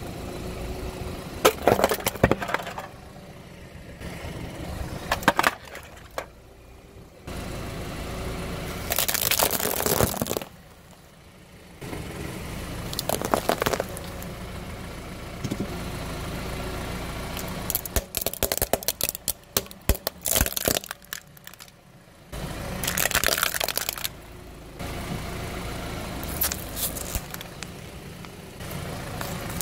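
A car tyre rolling slowly over objects on brick paving, crushing and cracking them: tin toy-car boxes, tinsel garland and small hollow white objects. Sudden loud cracks and crunches come in clusters several times, between stretches of low tyre and engine rumble.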